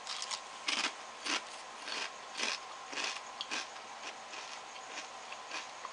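Potato chips crunching as they are chewed close to the microphone, in short crisp crunches about twice a second.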